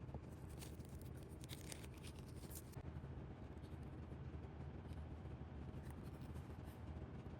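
Faint clicks and small taps of handling die-cast toy car parts, clustered in the first three seconds, over a steady low hum.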